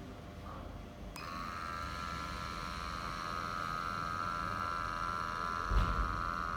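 Small sampling pump of a Dansensor CheckPoint II headspace gas analyser switching on about a second in and running with a steady high buzz, drawing gas out of a coffee capsule through a needle for an oxygen reading. A short low thump near the end.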